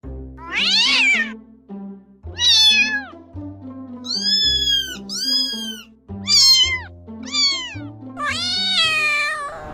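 Domestic cat meowing about seven times, the calls rising and falling in pitch, with the last one the longest, over background music.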